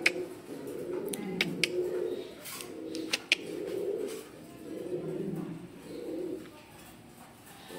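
Lakha fancy pigeons cooing in repeated low calls, about one a second, while displaying with fanned tails, with a few sharp clicks in the first half.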